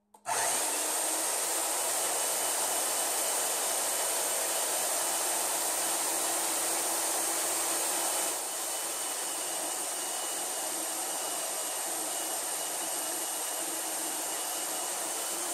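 Chicago Electric portable band saw, mounted in a wooden stand, running steadily with a motor whine and blade hiss as a metal bar is fed into the blade on a first test cut. The sound drops slightly about eight seconds in.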